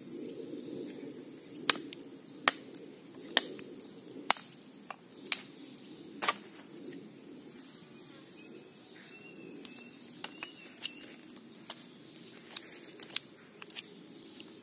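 Large knife blade chopping and whittling a wooden stick: six sharp cuts about a second apart, then lighter, quicker cuts near the end. A steady high-pitched insect drone sounds underneath.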